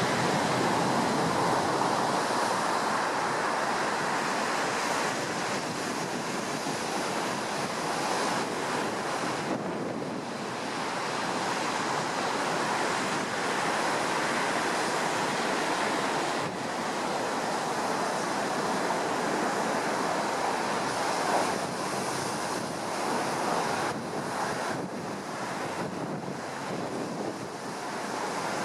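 Heavy surf breaking and rushing on the shore in a continuous wash that swells and eases, the waves raised by a distant typhoon, with wind buffeting the microphone.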